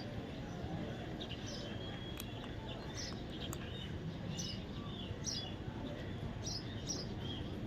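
Baby parrot chirping: short, high chirps at irregular intervals, roughly one a second, over a steady low background noise.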